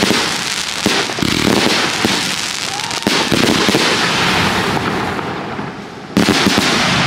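Fireworks going off: a dense, continuous crackling from crackling comets and star bursts, jumping abruptly in character a few times, with a brief rising whistle near the middle.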